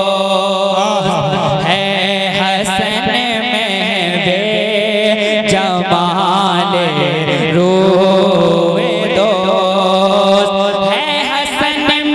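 A naat sung by a solo voice in long, wavering melismatic phrases over a steady low drone.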